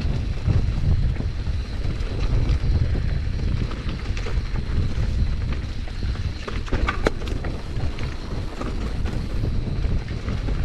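Wind buffeting the microphone in a steady low rumble while a mountain bike rides rough singletrack, with scattered rattles and sharp knocks from the bike, a cluster of them a little past the middle.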